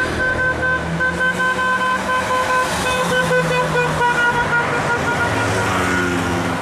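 A vehicle horn honking in rapid repeated toots, about three a second, over the engine and traffic noise of the cars and motorcycles escorting the cyclist. The horn's pitch drops a little past the middle.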